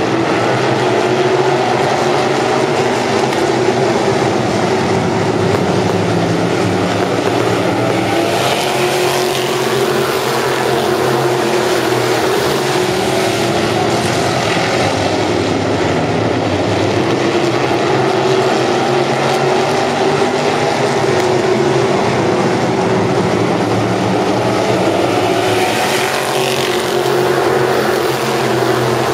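A field of asphalt modified race cars' V8 engines running hard at racing speed, a loud continuous engine noise whose pitch rises and falls several times as the pack goes round.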